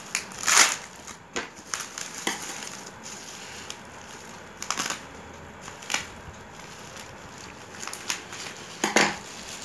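Plastic bubble-wrap packaging crinkling in irregular bursts as it is handled and cut open with scissors.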